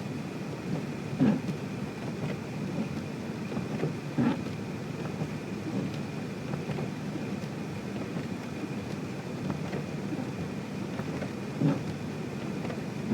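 A car driving on a slushy, wet road, heard from inside the cabin: a steady rush of tyre and road noise with a few short thumps.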